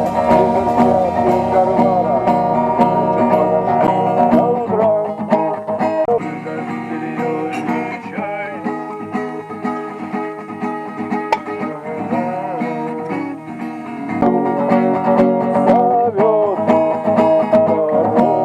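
Music with plucked strings in a bluegrass/country style, thinning out and getting quieter in the middle before filling out again.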